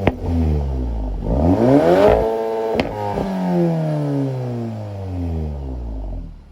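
VW T-Roc R's 2.0-litre turbo four-cylinder revved through its Akrapovič titanium exhaust: the revs climb sharply about a second and a half in, then fall away slowly, with sharp cracks from the exhaust near the start and just before three seconds. The sound drops away near the end.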